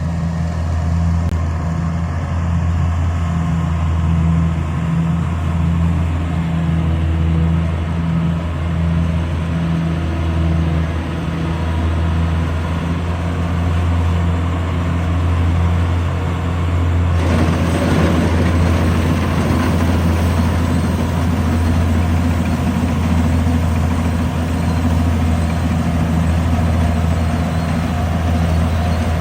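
Rice combine harvester's diesel engine running steadily, with a pulsing low drone. About two-thirds of the way in, a broader rushing mechanical noise joins, and the sound grows slightly louder.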